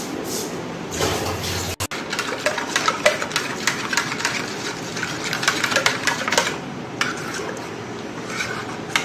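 Thinned mustard paste being stirred in a steel bowl: wet sloshing with quick, irregular clicks and scrapes against the bowl.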